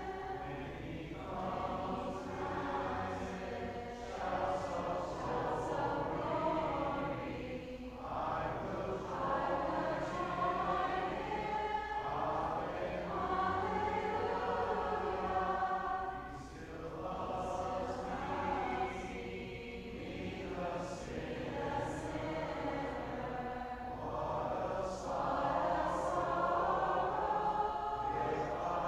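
A church congregation singing a hymn together, many voices in unison phrases of a few seconds with brief breaths between lines.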